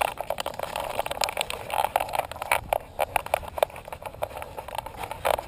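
Irregular knocks and scuffs from a camera strapped to a dog's harness, jostling as the dog climbs a steep trail.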